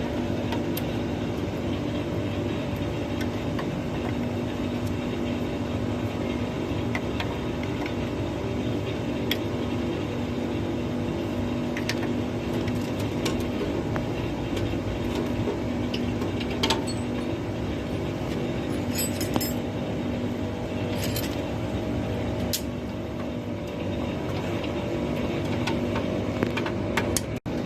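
Air-conditioner condensing unit running with a steady mechanical hum, with a few faint clicks and taps over it.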